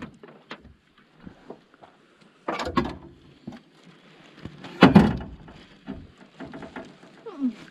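Knocks and clatter of fishing gear being handled in a boat, with small clicks and two loud bouts of thumps about two and a half and five seconds in. The gear is being rummaged through in a search for soft-plastic lures.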